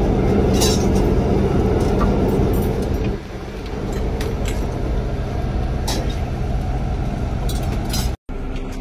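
Steady low hum of a vehicle cabin, with a few short clinks of spoons on steel plates. The hum drops in level about three seconds in and cuts out for an instant near the end.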